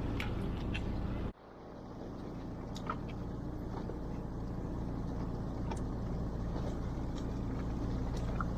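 Fishing boat's engine running steadily with a low drone. The sound drops out abruptly about a second in and fades back up over the next few seconds, with a few faint ticks over it.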